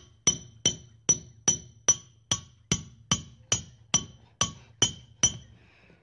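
Claw hammer striking a nail about a dozen times, evenly spaced at roughly two and a half blows a second. Each blow gives a sharp metallic ring. The blows stop shortly before the end.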